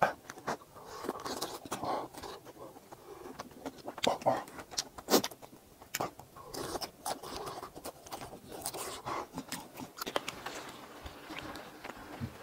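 Eating sounds from a mouthful of melted mozzarella cheese: wet chewing and smacking with irregular clicks.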